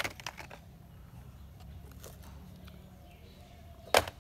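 Muddy plastic toys dropped into a plastic laundry basket: a knock with a short clatter at the start, then one louder knock near the end as another toy lands.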